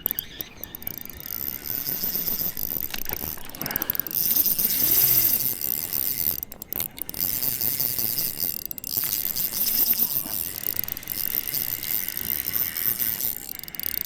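Fishing reel's drag clicking and buzzing as a hooked steelhead pulls line, breaking off briefly a couple of times.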